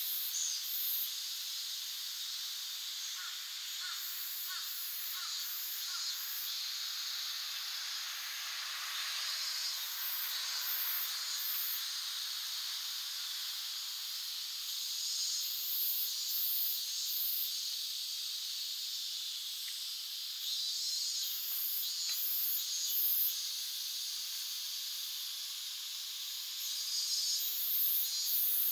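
Chorus of summer cicadas: a steady high hiss that swells into louder pulsing bursts every few seconds.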